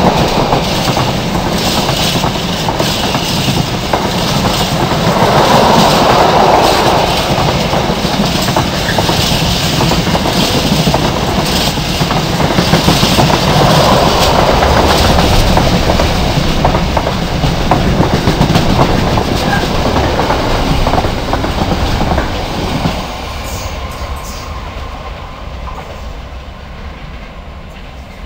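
Freight train of container flat wagons, many of them empty, passing through at speed, the wheels clattering over the track. The sound drops away sharply after about 23 seconds and fades as the train draws off.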